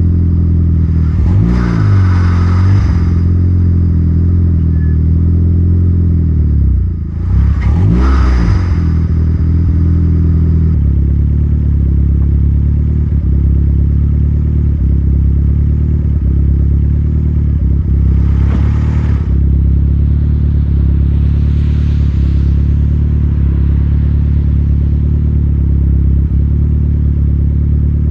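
Astra VXR's turbocharged 2.0-litre four-cylinder engine running under way. Its note dips and rises twice in the first nine seconds, each time with a rush of hiss, then holds steady with two more short rushes of hiss later on.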